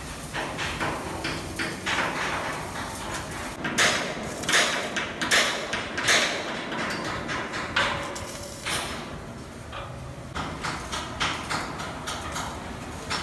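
Shipyard welding and steel-work noise: a run of irregular sharp bursts and knocks, at times a couple a second, loudest in a cluster about four to six seconds in, over a faint low hum.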